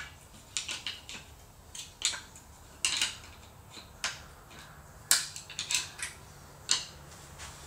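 Irregular sharp metallic clicks and clinks, about a dozen, as a washer is worked off a mounting stud of an aftermarket SEI outdrive with little room to clear it.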